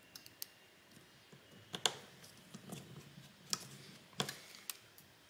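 Light plastic clicks and taps from handling and pressing a phone's internal plastic cover into place, several scattered sharp clicks with the loudest a little under two seconds in.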